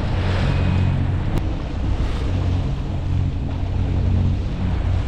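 Water rushing and splashing along the hull of a Beneteau sailboat under way, over a steady low engine hum, with wind on the microphone.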